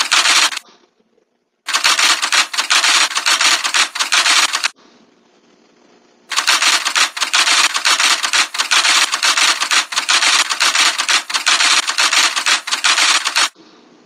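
Typewriter typing sound effect: a fast clatter of key clicks in three runs. It breaks off just after the start and again for a moment about five seconds in, then runs on until near the end.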